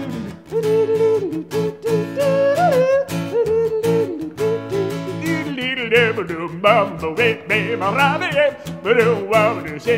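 Acoustic guitar strummed in a steady rhythm under a man's wordless singing. The voice wavers up and down and climbs higher about halfway through.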